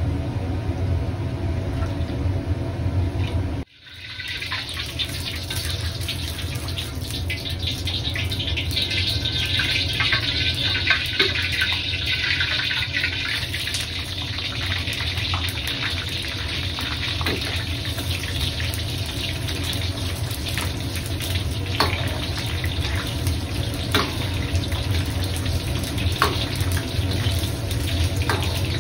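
Water running steadily from a kitchen tap into a sink, with scattered light clicks and knocks. It comes in after an abrupt cut about four seconds in, before which there is a low steady rumble.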